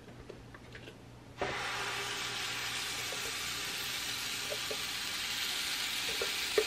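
Waffle batter sizzling on the hot plate of a flip waffle iron, starting suddenly about a second and a half in as it is poured and then running steadily. A few light clicks near the end.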